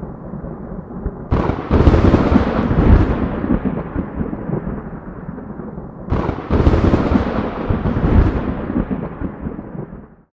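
Low rumbling noise with two loud booms about five seconds apart, each breaking in suddenly and dying away slowly, like thunder. The sound cuts off abruptly near the end.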